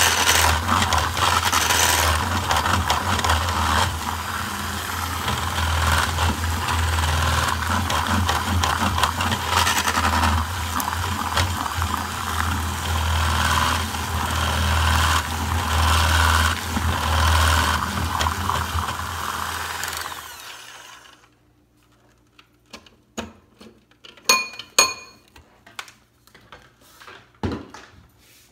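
Electric hand mixer running steadily as its beaters whip cake batter in a glass bowl, then switched off about twenty seconds in and winding down. A few light clicks and taps follow.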